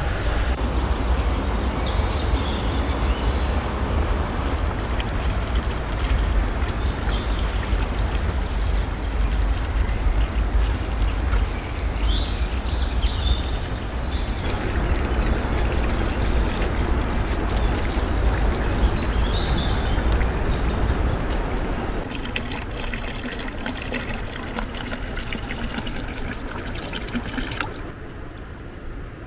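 Steady rush of flowing water, with short high chirps now and then. Near the end, a village fountain's spout pours a thin stream into a plastic cup.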